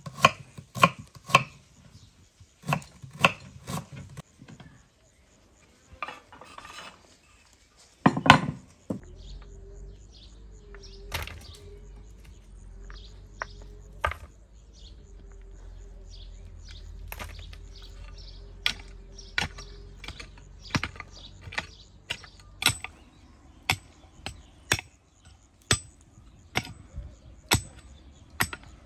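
A knife chopping onion on a wooden cutting board, a few sharp cuts in the first seconds. Then a pickaxe striking rocky soil again and again, about once a second, as a pit is dug.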